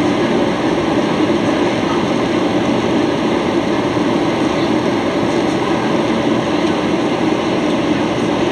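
Steady cabin noise inside a Boeing 737-800 in flight: the even, low rush of its jet engines and of air streaming past the fuselage, heard from a window seat.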